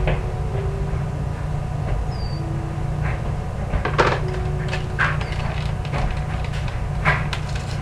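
Scattered knocks and clicks of kitchen handling over a steady low hum, with a few short tones.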